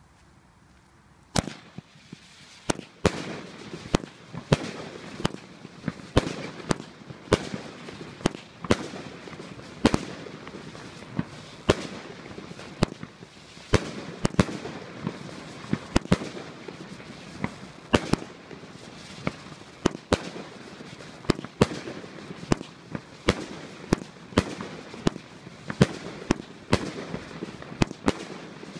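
25-shot firework cake firing shot after shot. Sharp bangs come roughly one to two a second, starting about a second and a half in, with a steady crackle between them.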